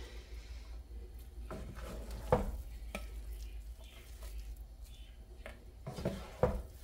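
Wooden spoon stirring and turning cooked moong dal khichdi in a pan, scraping and knocking against the pan, with sharper knocks about two and a half seconds in and twice near the end.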